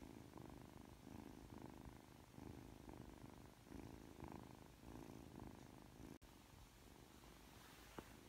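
Three-month-old ragdoll kitten purring softly, in a steady rhythm of about one and a half pulses a second, fainter after about six seconds. A short sharp click near the end.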